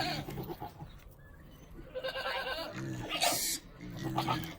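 Goats bleating, three long wavering calls one after another: hungry goats calling for feed with their hay run out.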